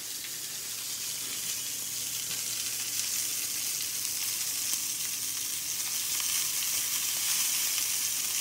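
Hanger steak searing in a hot cast-iron skillet: a steady sizzle of fat and juices that grows slightly louder.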